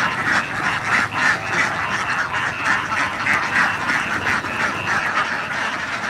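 A large flock of domestic ducks quacking continuously, many overlapping calls blending into a dense, unbroken chatter.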